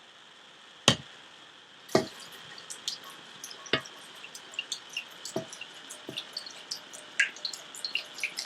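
Water poured into a pan of bath salts and rose petals, splashing and dripping in many small irregular drops. A single sharp knock comes about a second in, before the pouring starts.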